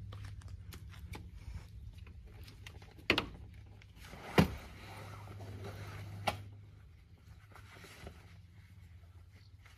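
Footsteps on a dirt track, then three sharp knocks as a rooftop-tent ladder in its carry bag is lifted and pushed into the tent on a 4x4's roof: one about three seconds in, the loudest a second later, another near six seconds.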